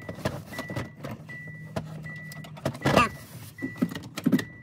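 A 2001 Nissan Maxima's warning chime beeping steadily at about two beeps a second, with the plastic centre-console trim clicking and knocking as it is fitted, and a loud short squeak about three seconds in.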